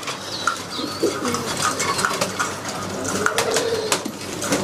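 Domestic pigeons cooing in a loft, several soft rolling coos overlapping, with scattered short clicks.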